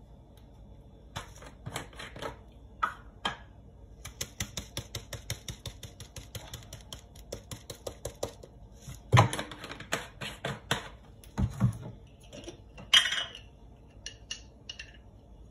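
Serrated bread knife sawing through a crusty sesame sourdough loaf: quick rasping strokes at about five a second for several seconds, with a few louder strokes in the middle and near the end.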